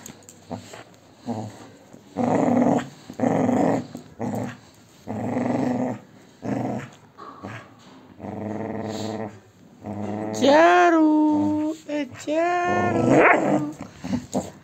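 Chocolate Labrador growling in a run of short rough bursts while tugging on a rope toy, followed near the end by two longer, louder pitched vocal sounds whose pitch rises and falls.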